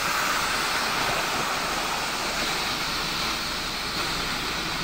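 Muddy floodwater rushing across a road in a steady, unbroken rush.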